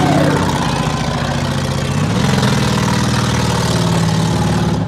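Street stock demolition derby cars' engines running loudly at low revs, with the pitch rising a little about two seconds in as an engine is revved.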